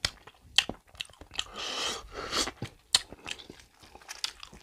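Close-miked chewing of beef curry and rice: wet mouth clicks and crunching, busiest around the middle.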